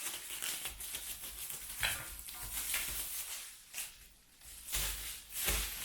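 Plastic protective wrapping being peeled and torn off a motorcycle crash guard, crinkling and crackling in uneven bursts.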